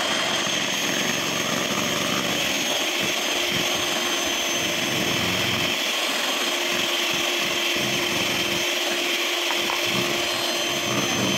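Handheld electric mixer running with a steady motor whine, its twin beaters whisking eggs and sugar in a stainless steel bowl.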